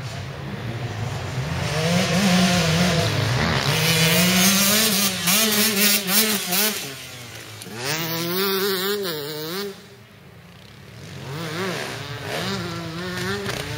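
Enduro motorcycles racing past on a dirt special test, their engines revving up and down as the riders work the throttle and gears close by. The sound drops off about ten seconds in, then another bike is heard approaching near the end.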